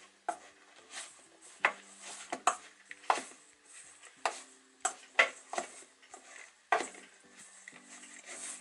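A metal spoon scraping and knocking against a stainless steel mixing bowl while stirring stiff flour-and-water dumpling dough, in irregular strokes about one or two a second.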